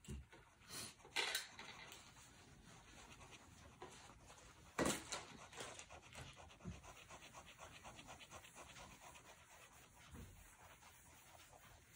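Fine-tip pigment liner pen scratching on paper in rapid, evenly repeated short hatching strokes. A few louder ticks come about a second in and about five seconds in.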